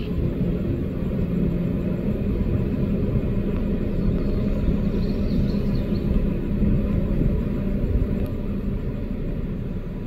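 Steady low rumble with a faint hum underneath, with faint high bird chirps about five seconds in.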